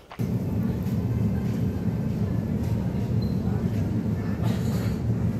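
Shopping-cart wheels rolling over a supermarket floor: a steady low rumble that starts suddenly just after the start and runs on evenly.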